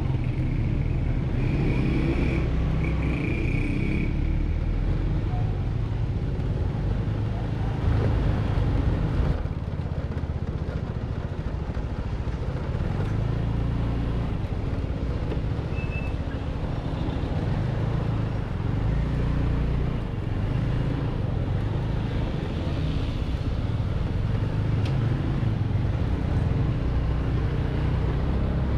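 149cc Kavan S scooter's single-cylinder engine running steadily at low speed, with tyre and street noise. Two short high-pitched tones sound in the first few seconds.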